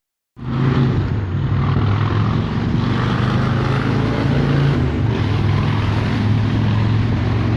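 A motor running steadily, a low hum with a hiss on top, cutting in suddenly just after the start.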